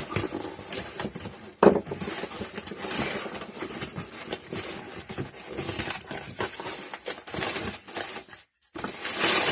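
Packing material and paper rustling and crinkling as a parcel of old tools is unpacked by hand, with small handling knocks and one sharp knock about a second and a half in.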